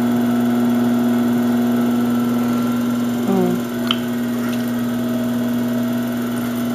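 Electric pottery wheel running with a steady hum while wet clay is thrown on it, with a single short click about four seconds in.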